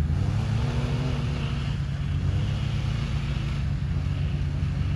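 An SUV engine revving hard under load, its pitch wavering slowly up and down, as the vehicle spins its tyres in deep snow, stuck while towing a flatbed car trailer.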